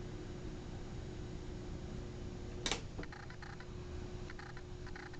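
Tomz Knife Massager sharpening machine running quietly with a faint steady hum. A sharp click comes about two and a half seconds in, followed by a scatter of faint light ticks and small squeaks.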